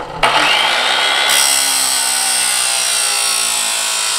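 Pro-Tech chop saw with an abrasive cut-off disc cutting 1-inch square steel tubing: the motor runs up and the disc grinds steadily through the metal, with the high, harsh cutting sound building about a second in.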